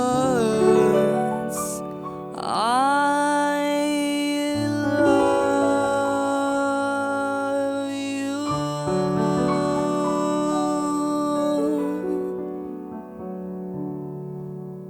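Closing bars of a slow song on piano or electric piano: sustained chords that change every few seconds, with one sliding note about two and a half seconds in. The music fades out near the end.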